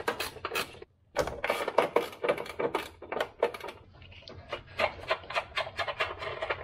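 A 13 mm ratcheting ring spanner clicking in quick strokes, a few clicks a second with a short pause about a second in, as it undoes a nut on the ABS modulator mounting.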